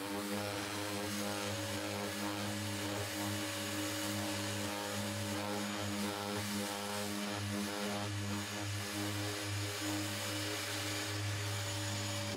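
Random orbital sander with a dust-extraction hose running steadily, dry-sanding cured clear coat on a carbon-fibre roof with 500-grit Kovax abrasive to flatten it to an even matte for re-lacquering. A steady low motor hum with an even hiss above it.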